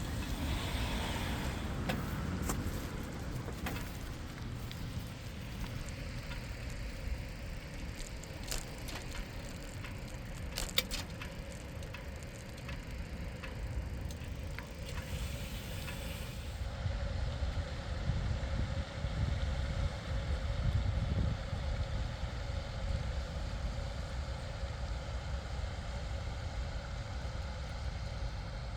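Riding noise of a bicycle on a path: steady low wind rumble on the microphone with tyre noise, and a few sharp clicks or rattles about a third of the way in.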